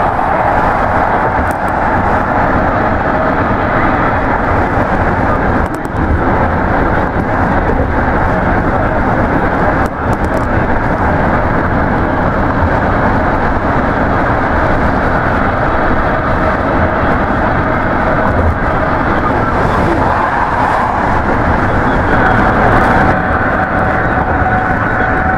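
Steady road and wind noise of a car driving at highway speed, heard from inside the cabin.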